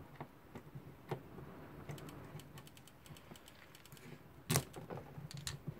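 Scattered small metallic clicks and taps of a screwdriver working the click into a notch of the ratchet wheel on an old mechanical alarm clock movement, with one sharper click about four and a half seconds in.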